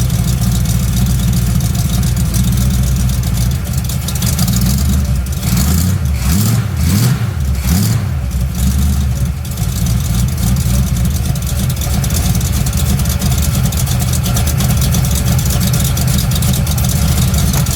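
Chevrolet truck's mild-cam 454 big-block V8 idling through a dual 3-inch exhaust with glass packs and Flowmaster Super 10 mufflers, revved in several short blips from about five to nine seconds in, then settling back to a steady idle.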